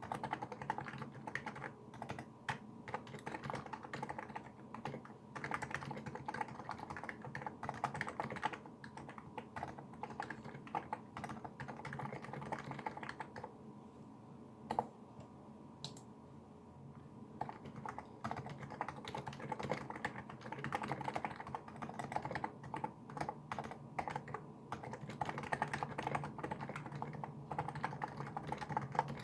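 Typing on a Niz Plum Micro84 electrostatic capacitive keyboard fitted with SA-profile keycaps: a dense, quick run of keystrokes. About halfway through, the typing pauses for a few seconds, broken by a single keystroke.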